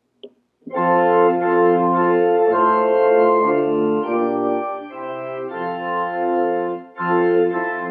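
Organ playing sustained chords that change every second or so, starting about a second in, with a brief break near the end.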